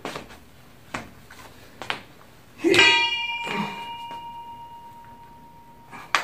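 Chrome dumbbells knocked together about three seconds in, giving a clear metallic ring that fades away over about three seconds. Light clicks from handling the weights come before it, and a sharp knock comes near the end.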